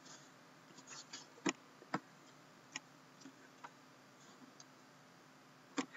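Sparse light clicks and taps, about half a dozen spread irregularly, from a sealed, shrink-wrapped hockey card box being handled and turned over in the hands.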